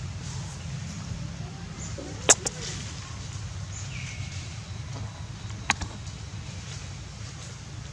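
Two sharp clicks or snaps, the first and loudest about two seconds in and the second about three seconds later, over a steady low rumble.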